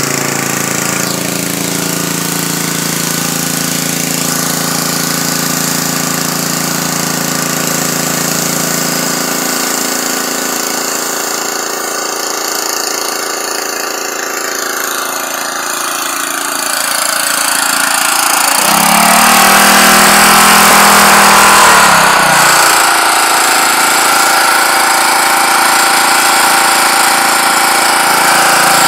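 Electric pressure washer running: a steady motor and pump hum under the hiss of the water jet striking concrete. About two-thirds of the way in it grows louder, with a brief rise and fall in pitch.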